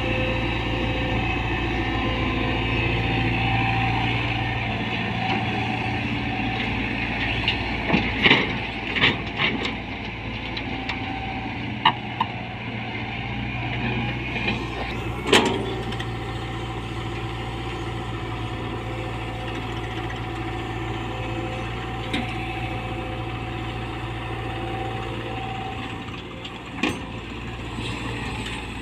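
Tata Hitachi 120 excavator's diesel engine running steadily, with several sharp knocks and clanks, the loudest about fifteen seconds in.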